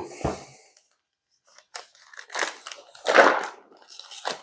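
Crinkling of a plastic bag and scuffing of a cardboard ammunition box as the box is opened into the bag's mouth. There are a few separate rustles, the loudest about three seconds in.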